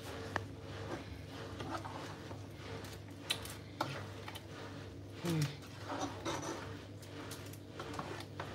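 A spoon or spatula stirring thick okra soup in a pot, with scattered clicks and scrapes of the utensil against the pot over a steady low hum.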